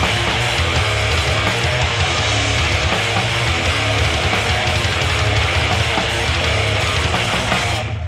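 Loud live grindcore/thrash punk band playing: distorted electric guitars over heavy bass and drums. The band breaks off abruptly right at the end.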